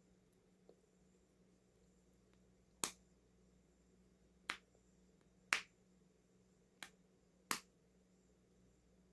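Crocheted amigurumi cucumber fidget toy being squeezed, its hidden plastic insert giving sharp clicks: five of them at uneven spacing, with a faint one near the start.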